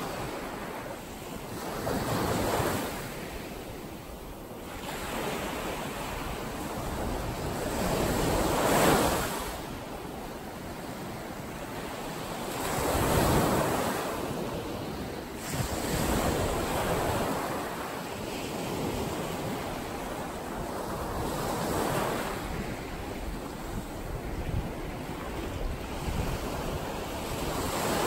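Small ocean waves breaking and washing up a sandy beach. Each surge of surf swells and fades over a few seconds, the loudest about a third of the way and halfway through.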